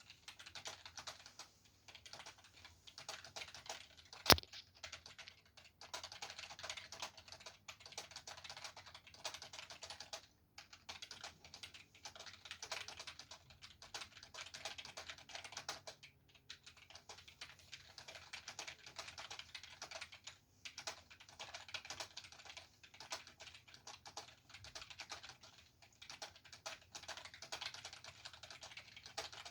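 Fast, continuous typing on a computer keyboard: rapid keystroke clicks with a couple of brief pauses, and one much louder click about four seconds in.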